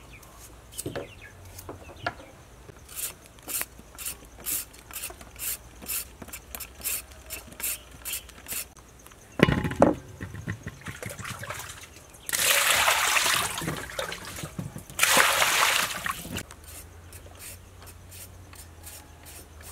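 A carrot being peeled over a steel bowl: quick, regular scraping strokes, about two or three a second, then a sharp knock against the bowl about nine seconds in. Later come two bursts of water pouring, the first about two seconds long and the second shorter.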